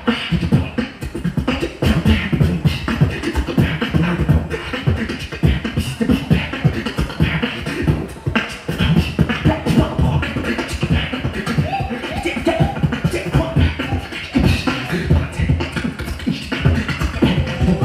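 Solo beatboxing into a handheld microphone through a PA: a dense, continuous rhythm of percussive mouth sounds, with a few short hummed tones about twelve seconds in.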